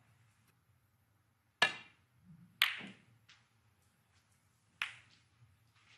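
Snooker balls clacking on the table: two sharp clacks about a second apart, then a third about two seconds later.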